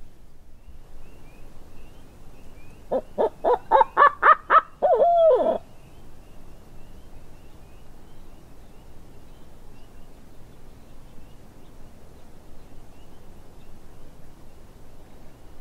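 Barred owl hooting: a quick run of about eight hoots rising in pitch, ending in one drawn-out note that bends down, about three seconds in. Faint high bird chirps in the background.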